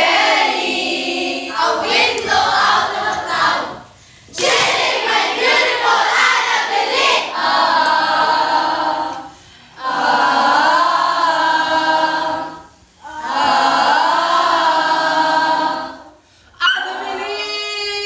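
A group of young voices singing together in slow, held phrases a few seconds long, with short breaks between the phrases.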